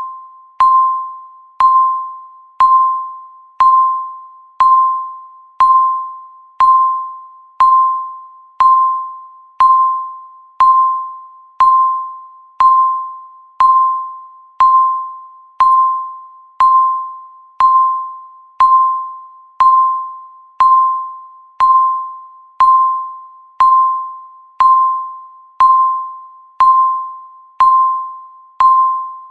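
Electronic countdown-timer beep: a single mid-pitched tone about once a second, each one starting sharply and fading away, marking off the seconds as the timer counts down.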